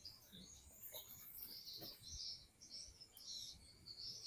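Faint high-pitched chirping from small night creatures, in short chirps at irregular intervals, with a few faint low thuds.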